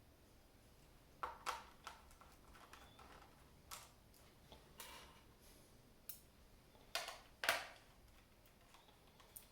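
A laptop being handled and worked on: a scattering of small plastic clicks and taps, the loudest a pair of knocks about seven seconds in.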